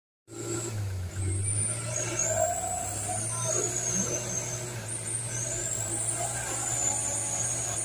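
Mitsubishi Colt Diesel dump truck's diesel engine running steadily under load as the truck crawls through deep mud, with a high whistle wavering in pitch over the engine sound. The sound cuts in abruptly a moment after the start.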